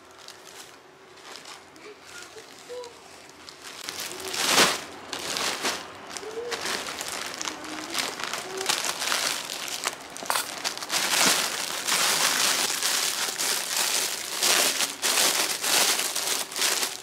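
Plastic packaging crinkling and rustling as parcels are handled and opened: courier mailer bags and clear plastic wrap. There is one loud crinkle about four and a half seconds in, and the rustling grows denser and louder in the second half.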